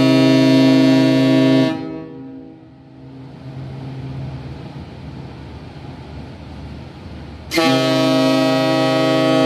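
Cruise ship Hanseatic Nature's horn sounding a long, steady, deep blast that cuts off about two seconds in. After several seconds of low background rumble, a second long blast starts near the end.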